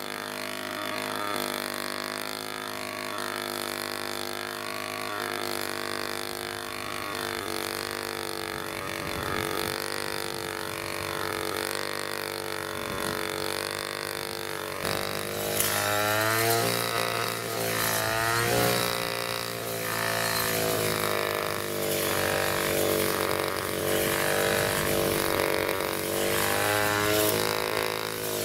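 A two-stroke brush cutter engine with an expansion-chamber exhaust, running while it cuts grass. It holds a fairly steady speed at first. About halfway through it gets louder, and the revs rise and fall repeatedly as the motorcycle-style twist throttle is worked.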